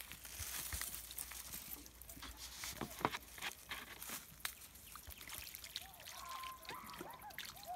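Water pouring from a plastic soda bottle and trickling onto loose soil, wetting the earth so that it sets firmly around the trap. Near the end the pour breaks into a run of short gurgling pulses.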